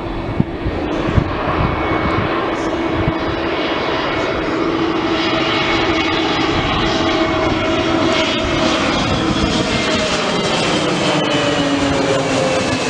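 Airliner's engines passing low overhead on landing approach, a loud steady rush with whining tones that drop in pitch from about eight seconds in as the aircraft goes by.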